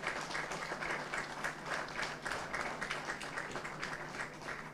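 A small group applauding: many hands clapping quickly and unevenly.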